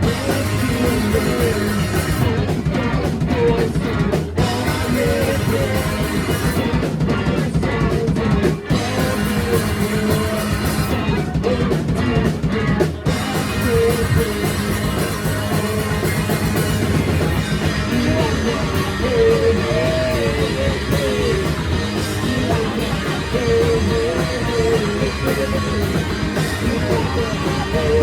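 Rock band playing live and loud: drum kit, electric guitars and bass in a continuous song, with a wavering melody line running over it.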